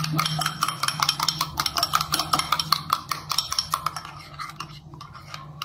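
A metal spoon beating eggs in a glass bowl: rapid clinks of the spoon against the glass, which thin out and go quieter about four seconds in.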